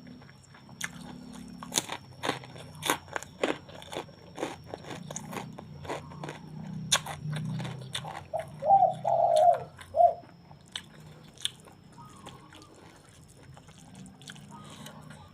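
Close-up biting and crunching of crisp crackers, a rapid run of sharp crunches followed by softer chewing. About halfway through, a brief wavering high-pitched call is the loudest sound.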